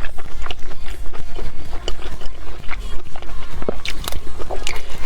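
Close-miked eating sounds: chewing with many short, sharp crunches and mouth clicks at an irregular pace.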